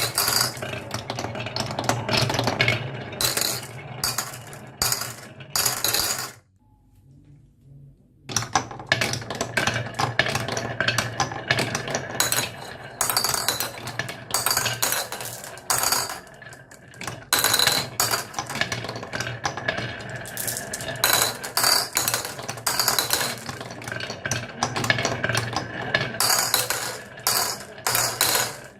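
Marbles rolling and clattering down a marble run track: a steady rolling rumble with many quick clicks and clinks as they knock against the track and each other. The sound drops out briefly about six seconds in, then the rolling and clicking start again.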